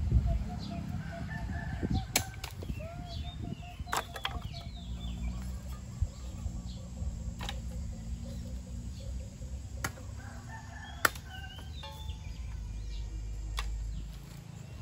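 Chickens clucking and small birds chirping in short calls, with a few sharp knocks now and then over a low steady rumble.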